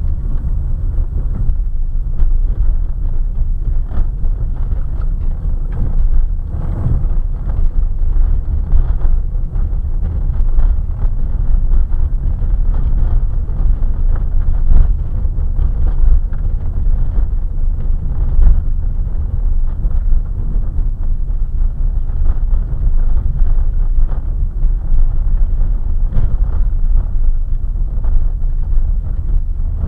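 Car driving on a gravel road, heard from a dashcam inside the car: a steady low rumble of tyres and engine, with frequent small knocks and crackles from the gravel under the wheels.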